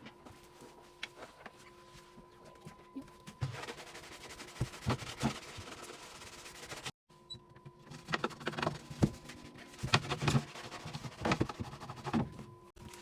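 Irregular knocks, clicks and clatter of items being handled while a fridge is cleaned out, over a faint steady hum. The sound cuts out for an instant about seven seconds in, and the knocks grow busier after that.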